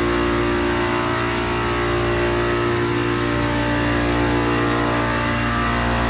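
Multistack modular water-cooled chiller running, its scroll compressors giving a steady hum of several even tones layered over a constant low drone, running smoothly.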